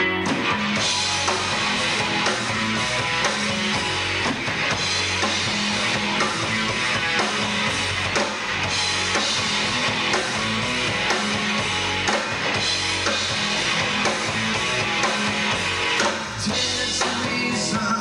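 Live rock band playing: electric guitars, bass guitar and drum kit, with the whole band coming in together right at the start.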